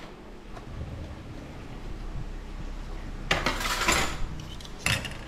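Clattering of hard objects, in a burst about three seconds in and a short sharp one near the end, over a faint low background.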